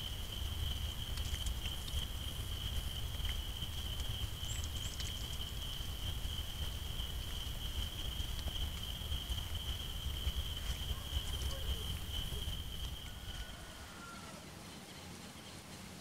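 Forest ambience with an insect holding one steady high-pitched note over a low rumbling hiss, and a faint short bird whistle now and then. About two and a half seconds before the end the insect note and rumble cut out, leaving quieter outdoor ambience.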